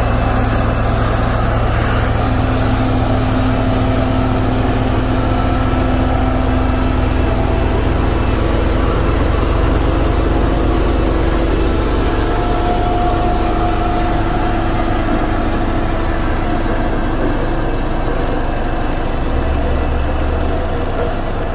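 Diesel engine of a single-drum road roller running steadily as its steel drum rolls over a freshly spread gravel road base, with a strong low hum.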